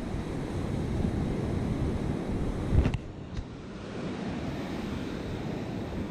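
Ocean surf washing on the beach with wind buffeting the microphone, a steady rushing noise. A brief sharp knock sounds just before the middle, followed by a smaller click.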